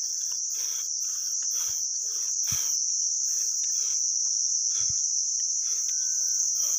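High, steady chirring of insects in the trees, with faint footsteps on the path.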